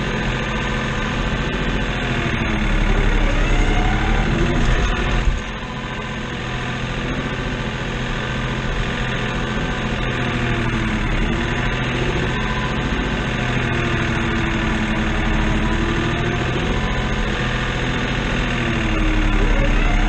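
New Holland tractor's diesel engine running, heard from inside the cab, with a whine over it that rises and falls in pitch. The engine sound drops suddenly about five seconds in, then holds steady.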